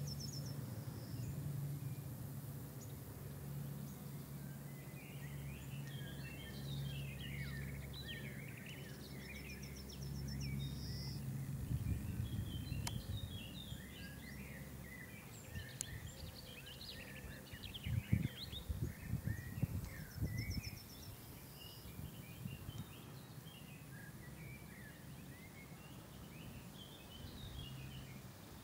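Several birds chirping and singing over a low background rumble, with a few short, rapid ticking trills high up. A few low thumps come in the middle.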